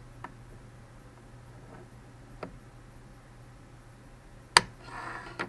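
Handling noise: a few light clicks, then a sharp, much louder click about four and a half seconds in, followed by a brief rustle and one more click, over a faint steady low hum.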